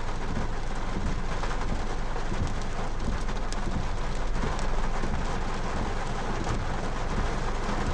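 Rain pouring steadily in a storm: an even hiss of falling rain with a constant low rumble underneath.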